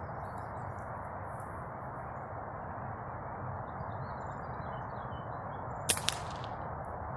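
A single .22 air rifle shot with a sharp crack about six seconds in, followed a fraction of a second later by a second, quieter crack, over a steady background hiss.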